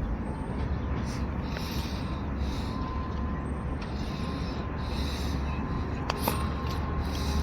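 ER9M electric train running, a steady low rumble with a rhythmic hiss about once a second and a couple of sharp clicks about six seconds in.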